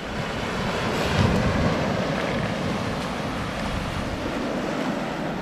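Ocean surf breaking and washing up the beach, swelling over the first second and then rushing on steadily.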